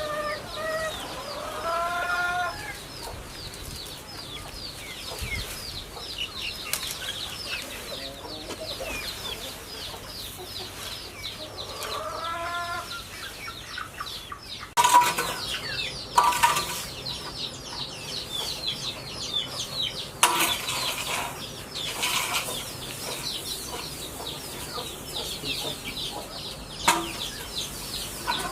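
Farm chickens clucking, with two rising, drawn-out hen calls and a constant scatter of short, high chirps. In the second half, several sudden noisy bursts break in.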